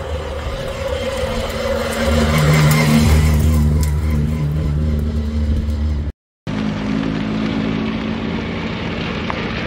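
Classic touring car engines running, loudest about two to three seconds in. The sound cuts out for a moment about two-thirds through, then the engines carry on.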